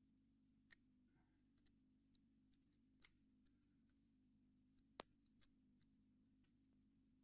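Near silence broken by a few faint, sharp clicks, two of them louder, about three and five seconds in: homemade picks working inside a Squire 660 padlock, over a low steady hum.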